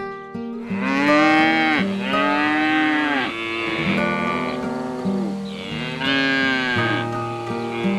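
Cattle mooing: about four long moos one after another, over soft background music with guitar.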